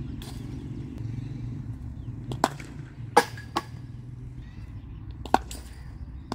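Sharp knocks of a leather cricket ball on bat and concrete practice pitch: two close together about two and a half and three seconds in, the second the loudest, a lighter one just after, and another about five and a half seconds in. A low steady rumble runs underneath.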